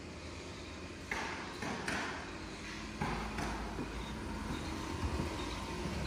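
Footsteps scuffing on a bare concrete floor, a handful of short steps, over a low steady hum.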